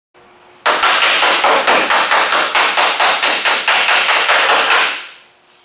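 Hammer striking a bare steel car quarter panel in a fast, even rhythm, several blows a second, the sheet metal ringing between blows. The hammering starts abruptly just after the start and dies away about five seconds in.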